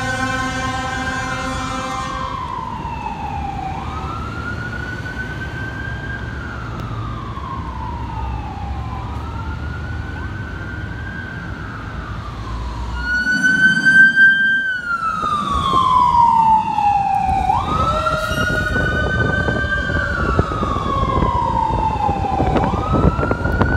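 Fire engine on an emergency run: a steady horn blast ends about two seconds in, then the wailing siren rises and falls over and over as the truck drives off. About halfway through the siren comes back louder, with a quicker rise and a long falling sweep, over the rumble of the truck and traffic.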